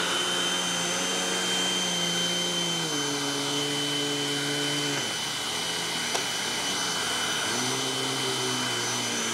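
Hoover WindTunnel Tempo upright vacuum running in place on carpet with a steady high whine. Its lower hum drops in pitch about three seconds in, fades about five seconds in and returns near the end as the nozzle height knob is turned through its high, medium and low settings.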